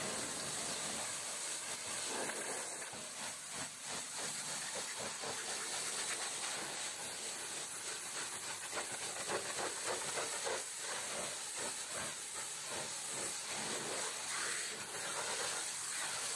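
High-pressure washer jet hissing steadily as it blasts mud off a truck's front tyre and steel wheel rim, the sound flickering as the spray moves across the wheel.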